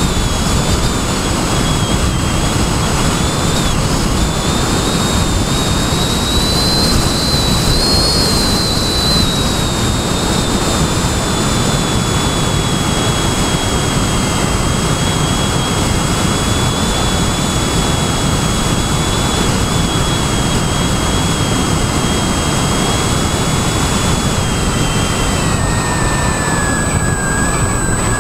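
A model airplane's motor gives a high whine over heavy wind rush on the airframe, heard through a camera mounted on board in flight. The whine climbs a little early on, holds steady, then falls in pitch near the end.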